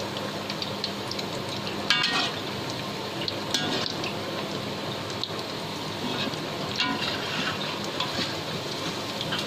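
Stuffed bread rolls deep-frying in hot oil, a steady sizzle with scattered crackles. A few sharp clicks break in, the loudest about two seconds in.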